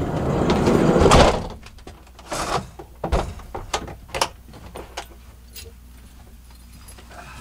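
A van's sliding side door rolls shut and closes with a heavy thud about a second in. A deeper thump follows, then a scatter of clicks and knocks as latches and cupboards are shut.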